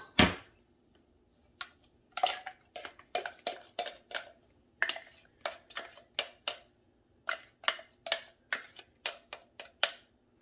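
A white plastic spoon scraping and knocking against a Nutribullet blender cup and a mixing bowl while thick mango purée is scraped out: a string of sharp taps and clicks, with one loud knock near the start.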